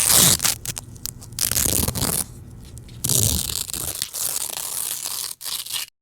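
Velcro fastener on a pair of pants being ripped open. It comes as loud rasping tears: a short rip at the start, another about a second and a half in, and a long one of nearly three seconds near the end.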